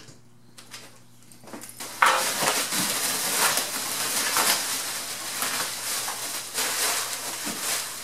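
Plastic bubble wrap crinkling and rustling loudly as it is pulled off a long sheet-metal rocker panel, starting about two seconds in.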